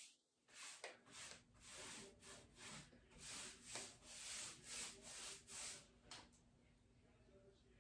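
Paintbrush and sponge being dragged back and forth over the painted wooden top of a dresser, laying on and blending a second coat of paint: faint, rhythmic scrubbing strokes, about two or three a second, that stop about six seconds in.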